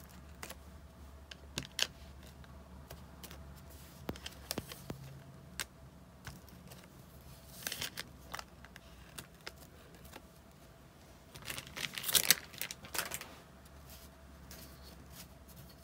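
Clear acrylic stamp being dabbed on an ink pad and pressed onto kraft paper tags: scattered light taps and clicks on the desk, with a quick run of louder taps about three-quarters of the way through.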